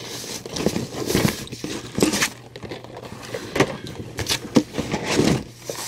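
Clear plastic action-figure packaging being handled and set down: irregular crinkling and rustling of the plastic, with light knocks and taps.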